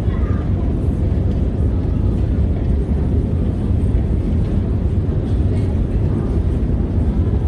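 A long metro escalator running in its tunnel: a steady, loud, low rumble with no breaks.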